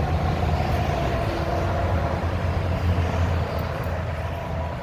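Military tank driving past: a steady low engine rumble with a faint high whine over it, easing off slightly near the end.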